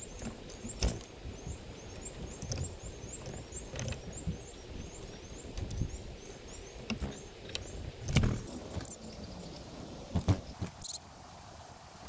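Small songbirds calling in quick series of short high chirps, with sharp taps and knocks as birds land on and peck at the wooden feeder platform, over a steady low rumble.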